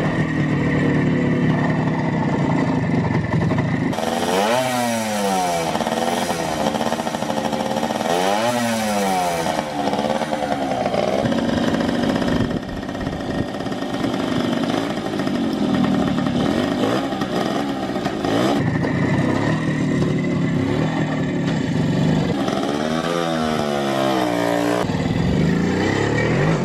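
Small vintage two-stroke motorcycle engine running, revved up and down several times in quick sweeps, then held steadier, and revved again near the end.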